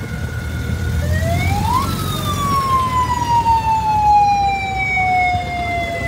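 A siren sounds one wail: its pitch rises quickly about a second in, then falls slowly over several seconds. Car engines run low beneath it.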